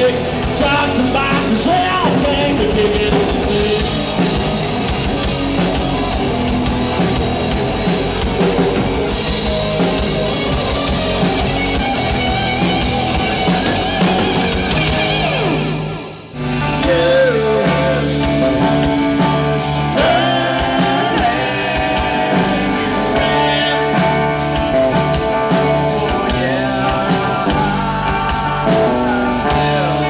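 Live rock band playing: electric guitars, bass and drum kit. About halfway through, the music breaks off for a moment and then comes straight back in.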